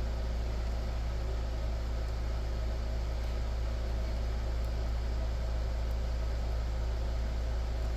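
Steady low hum with a faint even hiss, unchanging throughout, with no distinct knocks or clicks.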